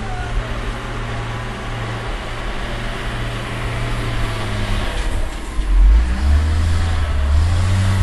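John Deere wheel loader's diesel engine running as the machine drives in, a steady low drone that revs up and gets louder about six seconds in.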